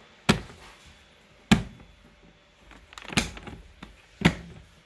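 Latches of a hard plastic rifle case being snapped open: four sharp clicks, with a little rattling around the third.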